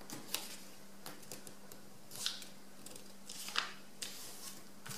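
A sheet of paper being folded and creased by hand: short rustles and crinkles, the loudest about three and a half seconds in, over a low steady hum.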